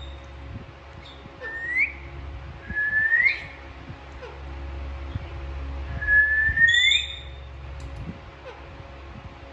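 Alexandrine parakeet whistling: three rising, swooping whistles, each about a second long, and a short, higher clear note about two thirds of the way in.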